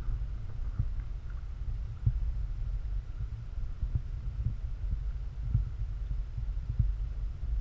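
Muffled low rumbling on the camera's microphone with soft, irregular thumps, as donkeys nuzzle and feed right at the camera.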